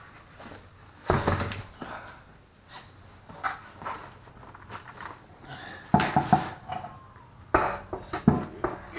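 Thuds and metallic clinks of a car wheel and tire being handled and fitted back onto the hub: a heavy thump about a second in, then a ringing metal clink with clatter about six seconds in and more knocks near the end.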